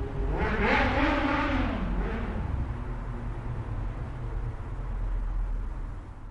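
Motorcycle engine at idle, blipped once about half a second in: the pitch climbs and falls back over about two seconds, then it settles to a steady low idle.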